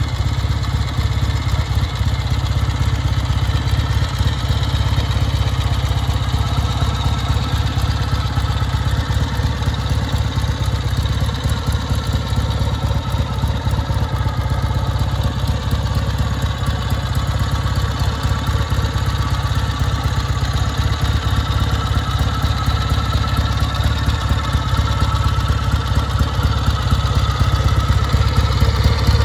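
Kawasaki W1's parallel-twin engine idling steadily, growing a little louder near the end.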